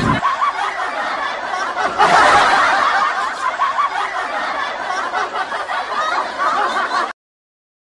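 People snickering and laughing, with a louder burst of laughter about two seconds in; the sound cuts off abruptly about seven seconds in.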